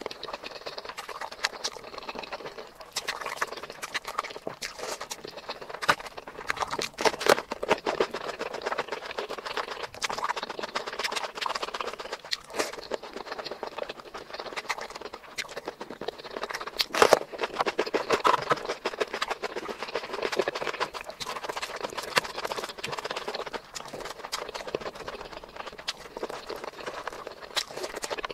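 Close-miked ASMR eating sounds: fingers mixing rice with curry and a person chewing with mouth noises, heard as a dense, irregular run of small clicks and squelches.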